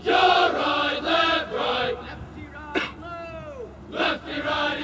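A marching unit of cadets chanting a marching cadence in unison, answering a single leader's calls: a loud group response, then the leader's solo line falling in pitch, then the group again.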